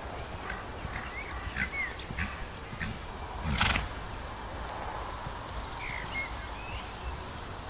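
A horse cantering in a sand arena, its hoofbeats coming as muffled thuds about every half second. There is a loud short burst about three and a half seconds in.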